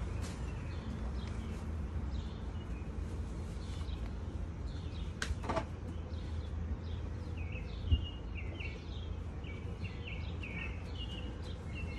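A small bird chirping: a quick run of short, down-slurred high notes, mostly in the second half, over a steady low outdoor rumble, with a couple of sharp knocks, the louder one about two-thirds of the way through.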